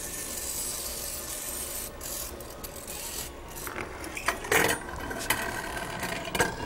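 Tedco toy gyroscope spinning down while held in the hand, giving a steady rasping whirr. From about four seconds in come several sharp clicks and knocks of handling.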